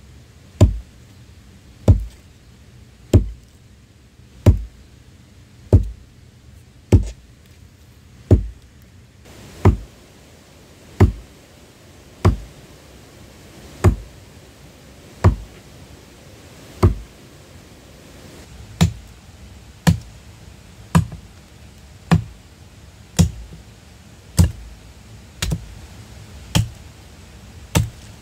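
Steady, evenly spaced blows of a tool on wood, about twenty in all, roughly one every second and a quarter, coming a little faster in the second half.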